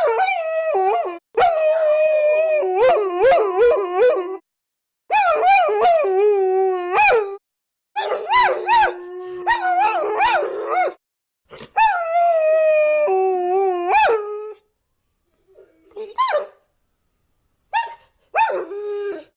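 Several dogs howling together, their wavering, gliding pitches overlapping. The howling comes in stretches that cut off abruptly and start again, with a few short howls near the end.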